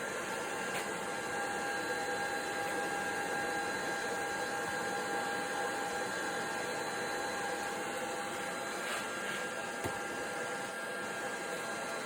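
Steady whirr of a cheap stick welder's cooling fan as the welder runs as a constant-current supply, with faint steady high-pitched whine tones over it.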